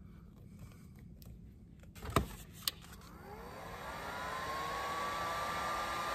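A sharp click about two seconds in, then an electric heat gun's fan motor spinning up: a whine rising in pitch that levels off into a steady blowing hiss, growing louder as it comes up to speed.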